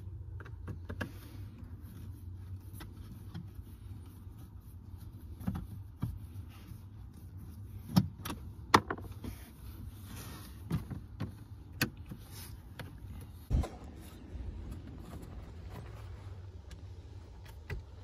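Scattered clicks, taps and knocks of screws being taken out and a plastic dash panel being worked loose inside a pickup cab, the loudest about eight and thirteen seconds in, over a steady low hum.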